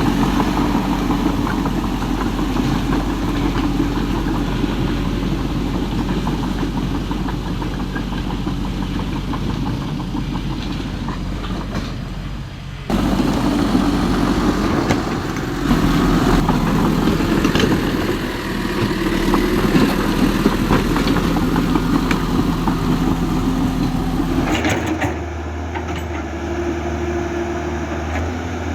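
Toy remote-control excavator and bulldozer running, a steady mechanical hum with engine-like pitched tones. It breaks off briefly about 13 seconds in and changes to a lower, steadier hum near the end.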